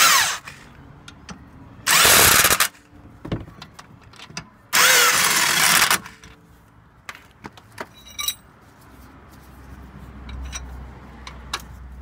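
Impact wrench running in three bursts, short at first and longer each time, driving the caliper carrier bracket bolts home on a Vauxhall Vivaro's front brake.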